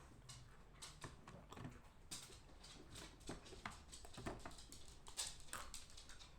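Dry lumps of edible clay cracking and crumbling: faint, irregular crisp clicks and snaps.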